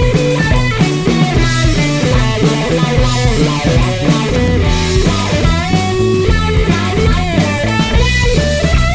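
Rock music with guitar and drums playing steadily.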